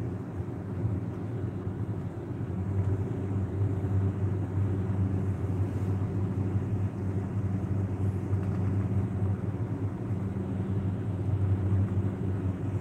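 Steady low hum with a rumble underneath, unchanging throughout.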